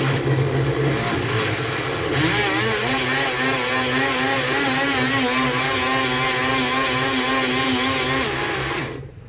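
Multilaser portable blender's motor running with about half a litre of water in the jar, in a test for leaks after a repair of the blade shaft's play. About two seconds in the sound changes and a wavering whine sets in. It cuts off near the end.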